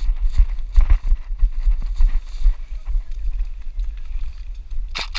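A person running, with irregular footfalls and gear jostling against a heavy rumble of wind and handling on the camera microphone. Right at the end a quick run of sharp clicks begins.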